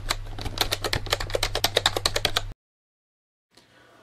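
Typing sound effect: rapid keystroke clicks, about ten a second, over a steady low hum. It cuts off suddenly about two and a half seconds in, followed by a moment of dead silence and then faint room tone.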